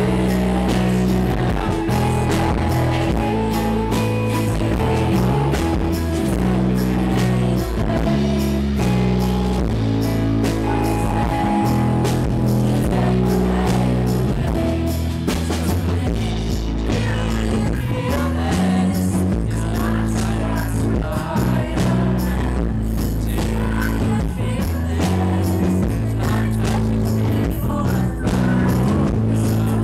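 A live rock band playing, with electric guitars and a steady low bass line under a woman singing lead into a microphone, heard from the audience.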